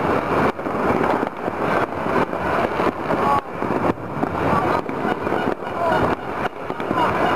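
Many fireworks and firecrackers going off at once across a city, their distant bangs overlapping into a dense, continuous crackle, with a few short whistles among them.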